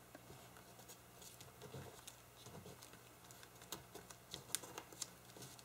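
Faint, scattered light taps and rustles of paper being handled and pressed down while finishing a handmade paper pocket.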